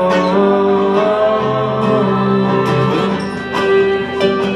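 Live acoustic pop band music: strummed acoustic guitar with long held sung notes on an "oh" vowel.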